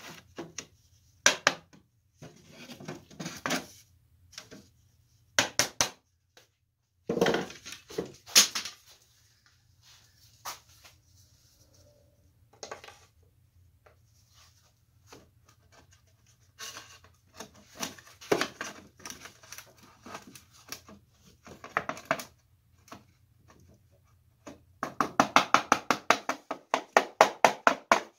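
Wooden drawer parts knocking and clattering on the workbench as the drawer is put together, then, about 25 seconds in, a fast run of light hammer taps, about six a second, driving the drawer back into place between the sides.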